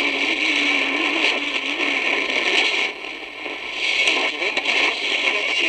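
Lowe HF-225 Europa shortwave receiver tuned across the 31 m broadcast band between stations: loud static and hiss from its speaker, with a low wavering tone running under it and a brief dip about three seconds in.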